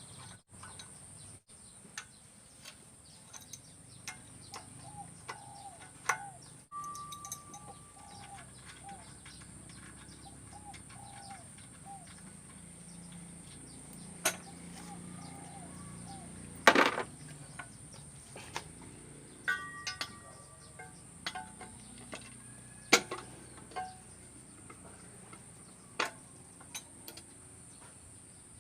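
Scattered metallic clicks and knocks of hand tools working on a 195 single-cylinder diesel engine during disassembly, with one louder clank about 17 seconds in.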